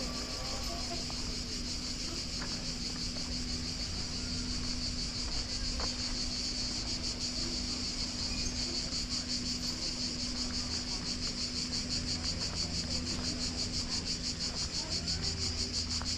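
A chorus of cicadas buzzing in a high, rapidly pulsing drone that swells louder toward the end.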